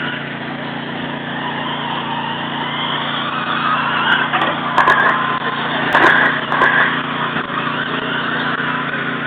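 Radio-controlled short-course trucks running on a race track: a steady mix of motor whine and tyre noise, with a few sharp clacks around the middle.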